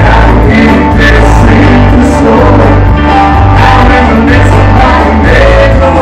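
Live rock and roll band playing loud on electric guitars and drums, with a heavy low end and a steady beat.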